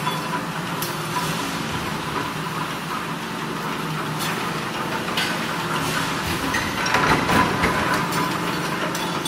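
Mechanical flywheel punch presses running, a steady machine hum with several sharp metal strikes at uneven intervals as the presses punch steel racking uprights. The clatter is loudest about seven seconds in.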